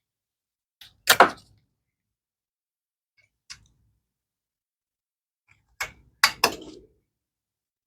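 A few separate clunks and knocks from parts being handled in the shop: a sharp one about a second in, a faint tick midway, and three close together near the end.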